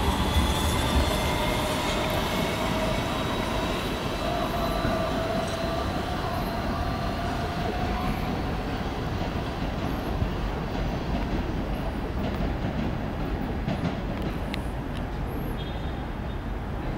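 R160B subway train with Siemens propulsion pulling away and receding. Its traction motors whine with a few steady tones that fade out about eight seconds in, while the rumble of the wheels on the rails slowly dies down, with a few faint clicks near the end.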